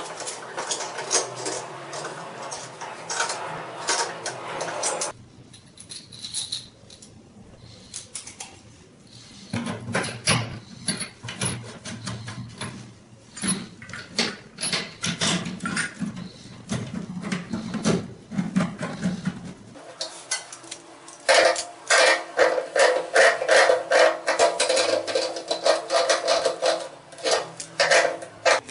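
Repeated metallic clicks and clinks of plumbing fittings being handled and screwed together: the water supply line being connected between the chrome wall stop valve and a toilet cistern's inlet. The clicking comes thick and fast for several seconds near the end.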